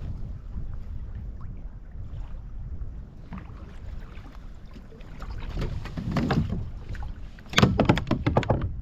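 Wind buffeting the microphone and water against a kayak, then near the end about a second of rapid splashing and knocking.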